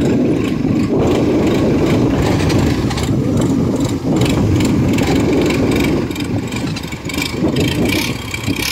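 Long-tail boat motor on a barge running steadily as the barge gets under way, a little quieter in the last couple of seconds.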